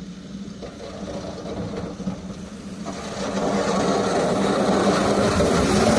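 A car engine running steadily. About three seconds in, a louder rushing noise builds up over it.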